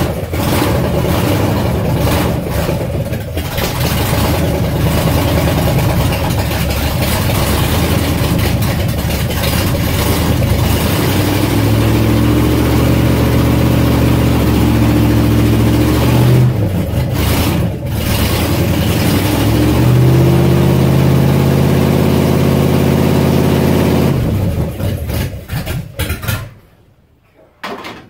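Freshly rebuilt BluePrint 355 small-block Chevy V8 with a Comp Cams XE274H camshaft, running on its first start with no exhaust connected, so it is very loud. Engine speed is raised and held twice, then the engine is shut off near the end.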